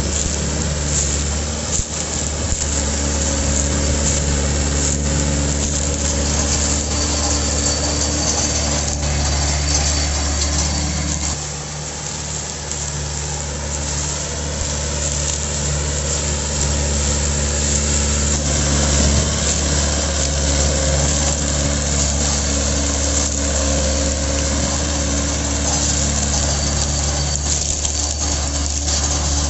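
Mahindra 575 DI tractor's four-cylinder 2730 cc diesel engine running steadily under load while it pulls a fully loaded sugarcane trolley, with a brief dip in loudness about a third of the way through.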